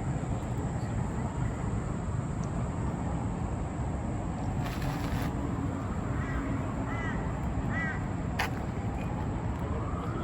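Outdoor city ambience: a steady low rumble, with a bird calling a few short repeated notes from about six to eight seconds in.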